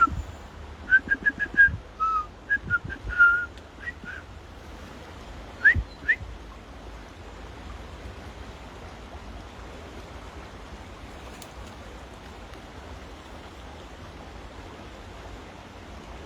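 A person whistling to call a dog back: a run of short whistle notes, then two quick rising whistles about six seconds in, over a steady hiss of rain and river water.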